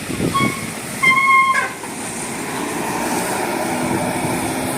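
Bus telolet horn giving two notes at the same pitch, a short one and then a longer, louder one about a second in, followed by the steady running noise of the passing bus.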